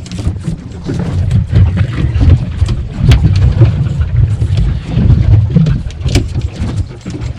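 Loud, uneven low rumble of wind and sea around a small aluminium boat offshore, with scattered knocks.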